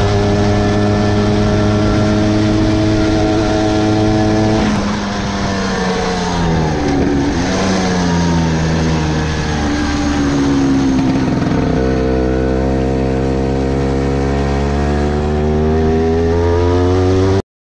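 Vespa scooter engine running under way: its pitch holds steady, falls and climbs again in the middle as the throttle comes off and back on, and jumps abruptly twice before cutting off suddenly near the end.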